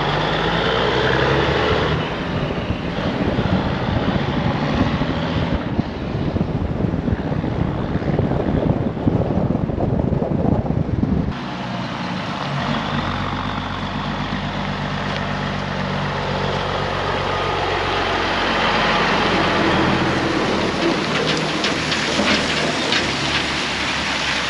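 Diesel semi truck running as it hauls a loaded lowboy trailer, with road and wind noise. About halfway through, the sound changes abruptly to a steadier low engine drone as the truck comes up a gravel road, with short crackling from tyres on gravel near the end.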